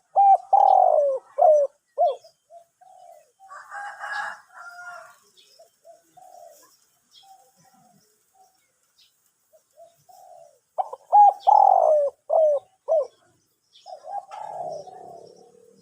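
Spotted dove (Thai nok khao yai) cooing in two loud phrases, one at the start and another about eleven seconds in. Each phrase is a quick run of short, falling coo notes, with softer coos between them. It is a big-voiced 'song kuk' cooer, a young bird just beginning to coo.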